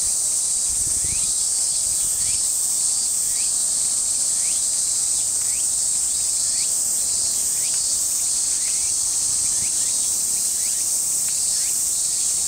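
Steady, high-pitched drone of insects, with a faint short rising chirp about once a second under it.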